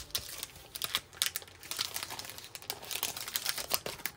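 Sheet of letter stickers and clear plastic packaging crinkling and rustling as they are handled and slid back together, many quick irregular crackles.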